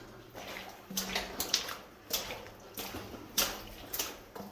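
Water splashing and sloshing in uneven bursts, like footsteps wading through shallow water on a mine tunnel floor, with a close, boxy echo.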